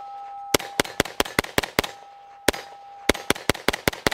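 Stribog SP9A3 roller-delayed 9mm pistol fired rapidly with 115-grain Federal rounds. Two quick strings of about five shots a second are split by a short pause with a single shot. Between shots a steady ring carries on, most likely a steel plate of the rack ringing from hits.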